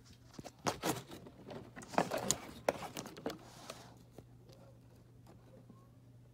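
Wooden window blinds being handled and pulled open: the slats clatter and scrape in a burst of sharp clicks and rattles lasting about three seconds. A low steady hum runs underneath.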